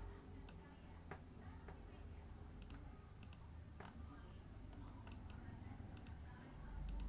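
Computer mouse buttons clicked a dozen or so times at irregular intervals, several as quick double clicks, over a low steady hum.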